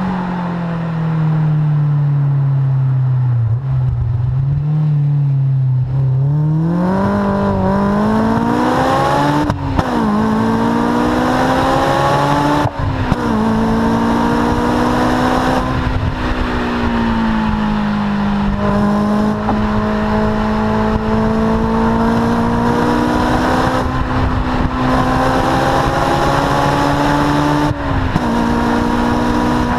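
Honda S2000's four-cylinder engine through a Supersprint aftermarket exhaust, under way: the engine note falls off, then climbs hard through two quick upshifts about three seconds apart, and then settles into a steady run with slow rises and another shift near the end.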